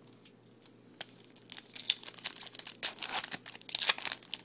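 Wrapper of a Bowman baseball card pack crinkling and tearing open. A single click about a second in, then dense, irregular crackling from about a second and a half in.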